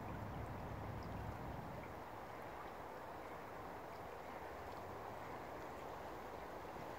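Shallow river water flowing steadily over stones, an even rushing sound. A low rumble underneath fades out about two seconds in.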